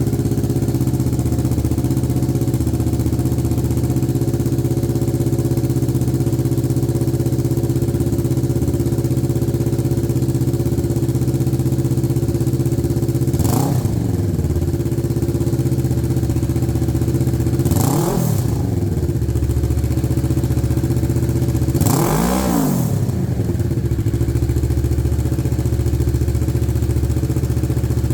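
A 2023 Kawasaki Ninja 650's parallel-twin engine idling steadily through its exhaust, blipped three times with short revs about 13, 18 and 22 seconds in.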